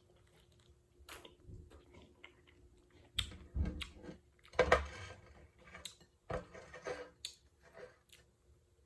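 Close-up chewing of pineapple chunks: irregular wet bites and chews, loudest about four and a half seconds in.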